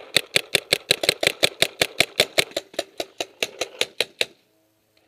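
Paintball marker firing a rapid string of around thirty shots, about seven a second, stopping about four seconds in.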